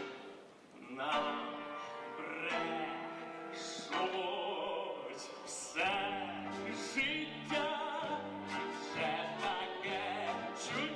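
A baritone sings an operetta number with vibrato over instrumental accompaniment. After a short lull, the voice and music come in about a second in.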